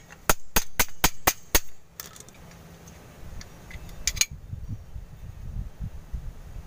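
Six sharp metal taps, about four a second, as pliers strike the pin and lock on a drum-type parking brake shoe. A quick double click follows about four seconds in, then faint handling rumble.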